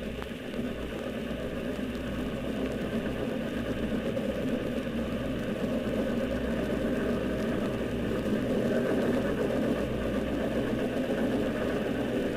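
Steam train running steadily, a dense rumbling chug that grows a little louder, heard through the surface noise and hum of an old 78 rpm record.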